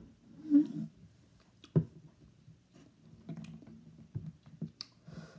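A boy's short strained vocal sound and mouth noises right after downing a shot of pure lemon juice, with a single sharp knock a little under two seconds in.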